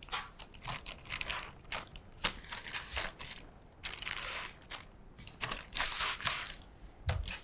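Hands rustling the plastic bag wrapped around a projector and scraping against the styrofoam packing inside a cardboard box, in irregular bursts.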